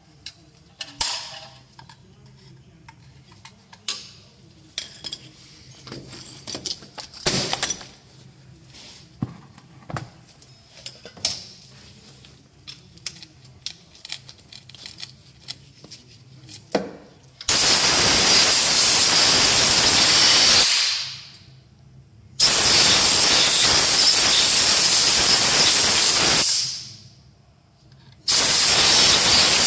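Aerosol cleaner sprayed from a can with a straw nozzle onto the crankshaft seal area of a diesel engine, in three long hissing bursts. Before that come scattered light clicks and knocks of tools being handled.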